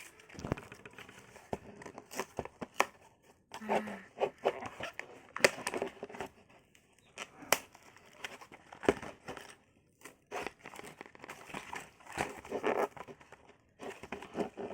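Blind-box toy packaging being crinkled and torn open by hand: irregular crackles and rustles.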